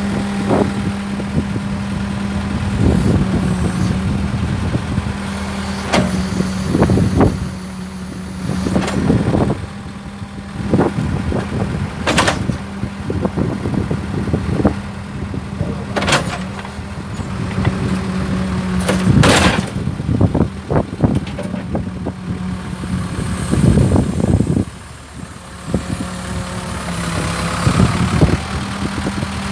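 Engine of a 1985 Case 580E loader backhoe running steadily, with repeated sharp metallic clanks and knocks over it. It drops away briefly about 25 seconds in, then picks up again.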